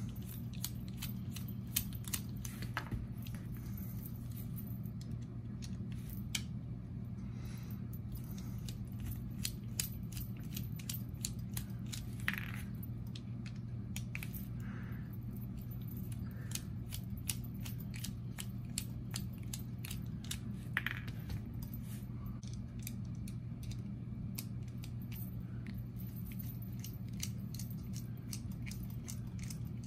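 Screwdriver backing out the small screws of a Civivi Fracture slip-joint pocket knife: a run of small, sharp metal clicks and ticks, bunched at times, over a steady low hum.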